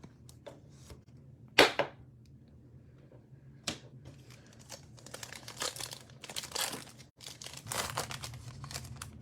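Plastic trading-card pack wrapper being torn open and crinkled by hand. There is a sharp rip about a second and a half in, another about two seconds later, then a run of crinkling.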